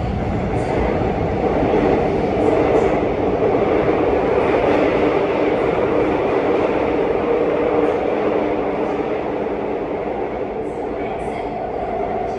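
Seoul Subway Line 2 train running, heard from inside the passenger car: a loud, steady rumble of wheels on rail with a hum, and a few faint clicks.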